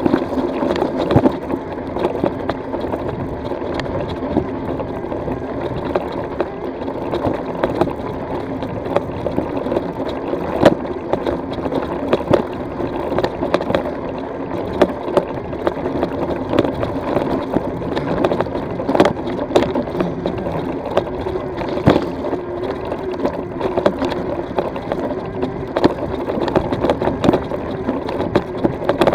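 E-bike tyres rolling and crunching over a loose, stony gravel track on a steep climb, as a steady rumbling noise with frequent sharp clicks and rattles from stones and the jolting bike.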